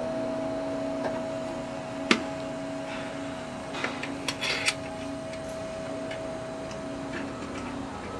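Sharp metallic clicks and taps of a hand driver and bolts as a motorcycle engine side cover is fitted: one loud click about two seconds in, then a quick cluster of clicks midway, over a steady hum.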